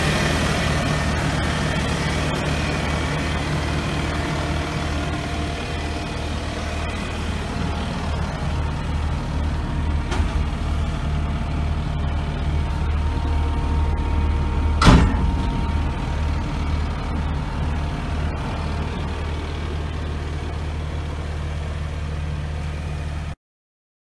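Kubota SVL75-2 compact track loader's four-cylinder turbo diesel engine idling steadily, with one sharp knock about fifteen seconds in. The sound cuts off suddenly near the end.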